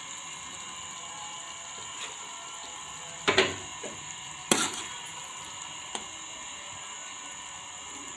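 Metal spoon scraping and knocking against a metal cooking pan while the cooked curry is scooped out: two louder knocks about three and four and a half seconds in, with lighter ticks around them, over a steady hiss.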